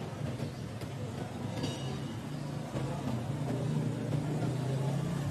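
Steady low drone of an engine running nearby, with a short high squeak a little under two seconds in.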